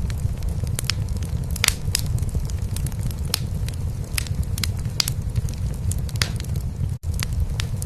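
A cat purring, a steady low rumble, under a wood fire crackling in a fireplace with sharp, irregular pops. The sound cuts out for an instant about seven seconds in.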